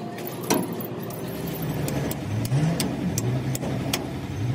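A vehicle engine running, with short revs a few times, under scattered sharp metallic clinks from tools on a truck wheel hub. The loudest clink comes about half a second in.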